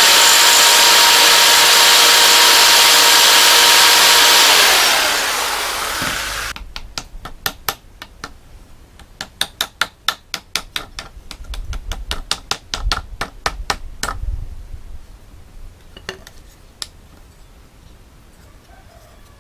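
Electric jigsaw cutting a thin wooden strip for about five seconds, then winding down. A quick run of light hammer taps follows, driving small nails into a wooden frame, with two last taps a little later.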